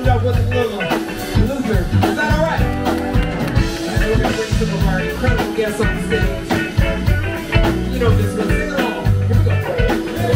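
Live smooth-jazz band playing: electric guitar lead over keyboard, bass and a drum kit keeping a steady beat.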